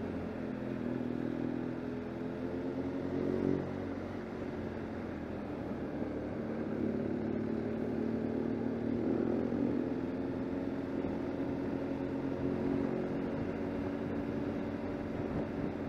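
BMW R1200 GS Adventure's boxer-twin engine running while the bike is ridden, its note rising and falling a few times with the throttle over steady road and wind noise.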